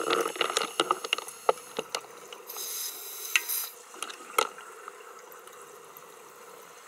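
Underwater sound of a scuba diver's breathing gear: scattered sharp clicks and crackles, with a hiss lasting about a second from roughly two and a half seconds in, over a faint steady hum.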